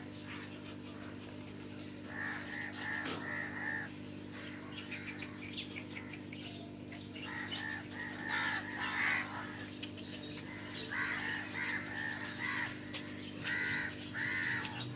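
Crows cawing in repeated short runs of three or four calls, over a steady low hum.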